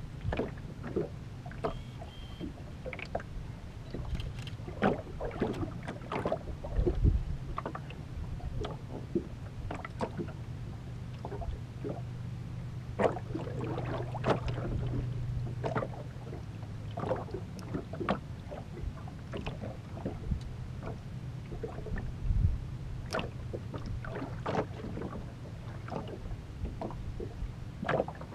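Small waves slapping and knocking against the aluminum hull of a fishing boat, in short irregular splashes, over a steady low hum.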